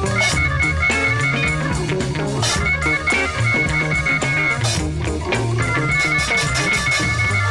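Background rock music with electric guitar, bass and a steady drum beat.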